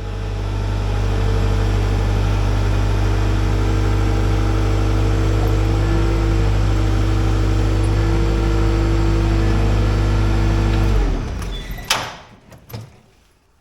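A motor-driven machine running steadily at a constant speed, then shut off about eleven seconds in and winding down in pitch, followed by a single sharp clack.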